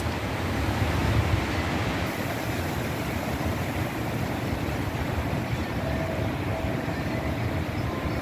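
Wind rushing over the microphone with a low rumble, and a tubular metal wind chime sounding a few soft tones near the end.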